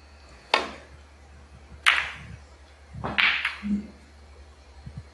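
Snooker balls: a sharp click as the cue tip strikes the cue ball, then about a second and a half later a second sharp click as the cue ball hits the pack of reds. A rougher, softer sound follows about three seconds in.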